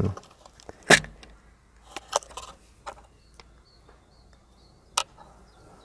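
Small clicks and rattles of metal drill bits being sorted in a plastic drill-bit case: a handful of sharp separate ticks, the loudest about a second in.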